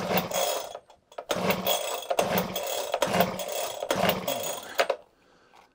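Honda HHH25 hedge trimmer's small four-stroke engine pull-started on full choke. It catches, breaks off briefly about a second in, then runs for about four seconds and cuts out abruptly near the end.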